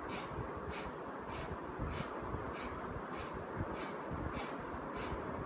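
Kapalbhati breathing: a rapid run of short, forceful puffs of breath out through the nose, evenly paced at about three every two seconds.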